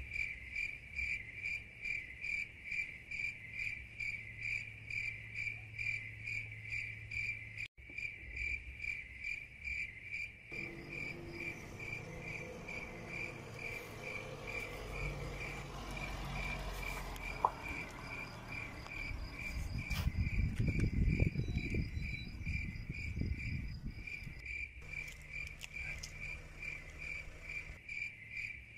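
Crickets chirping steadily in a fast regular pulse, about two to three chirps a second. From about a third of the way in, a van's engine comes up and grows louder to a low rumble about two-thirds in, with one sharp click, then settles to a lower steady hum.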